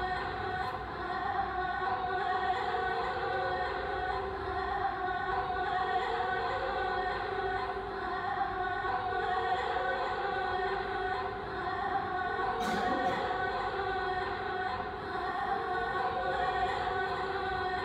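A woman singing long held notes in an operatic, chant-like style, played back through the installation's speakers and heard in the gallery room.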